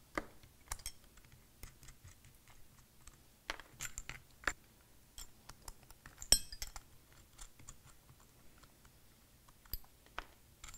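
Irregular metallic clicks and clinks as steel bolts are backed out of a fan clutch with a ratchet and handled on a workbench, the sharpest clink about six seconds in.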